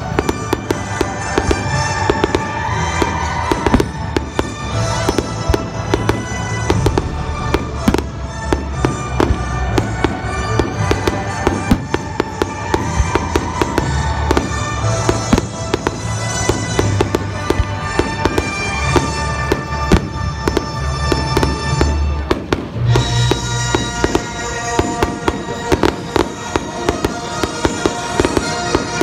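Fireworks display: aerial shells bursting in quick succession, many sharp bangs over loud music playing along with the show. The music changes near the end.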